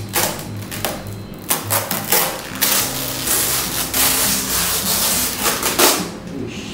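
A thin clear plastic bag crinkling and rustling as it is pulled off a plastic RC car body, in a run of crackles that stops about six seconds in. Background music plays underneath.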